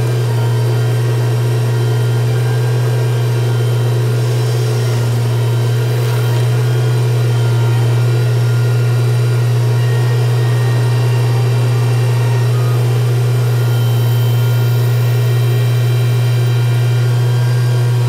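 Work truck's engine running at a steady speed close by, a loud, even low hum that does not change.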